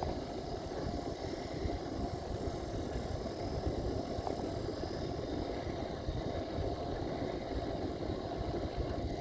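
Steady low wind noise buffeting the microphone, with tyre hum from a ten-speed bicycle rolling over smooth asphalt.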